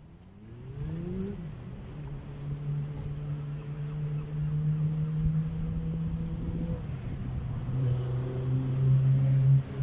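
A vehicle engine revs up, its pitch rising over about the first second, then runs at a steady pitch. It changes briefly about seven seconds in, then settles again, louder, near the end.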